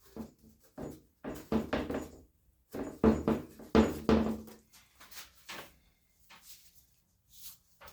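Irregular knocks and clatter from handling a plastic car door trim panel and tools, in two bunches of quick hits with a few lighter taps later.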